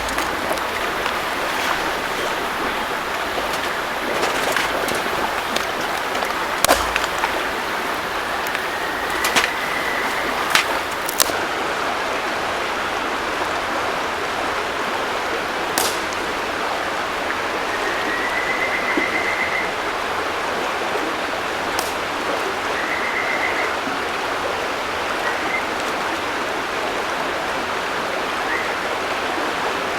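River water running steadily, with a few sharp clicks scattered through it and some short, faint high whistled notes in the second half.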